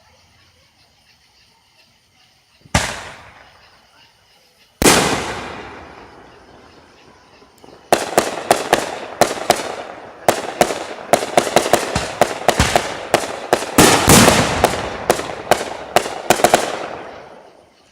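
Fireworks: two single booms about three and five seconds in, then a dense barrage of rapid crackling reports, several a second, from about eight seconds in until it dies away near the end.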